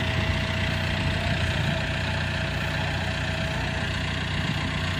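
Large farm tractor's diesel engine idling steadily while the tractor stands still.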